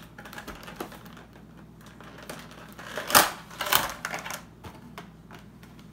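Clear plastic blister packaging being handled and pulled open: scattered light clicks, then two loud crackles of plastic about three seconds in, half a second apart.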